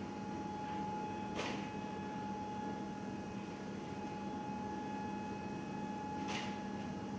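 Steady machine hum inside an aircraft cargo hold, with one low and one higher held tone over a hiss. Two brief swishes come through, about a second and a half in and again near the end.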